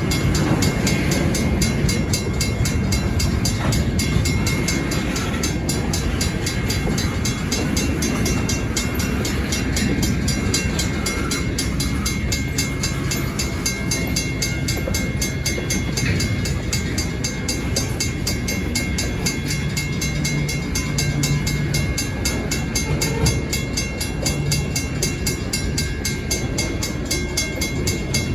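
Stockton Terminal and Eastern freight train running, a steady low rumble of locomotive and rolling cars, with a thin steady high tone over it.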